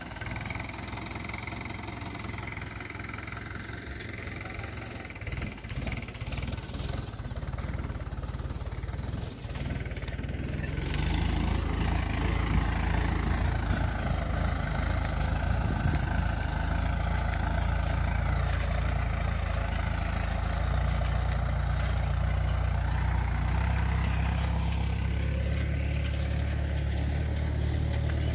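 Small farm tractor's diesel engine running steadily under load while pulling a tillage implement through the soil, growing louder about a third of the way in.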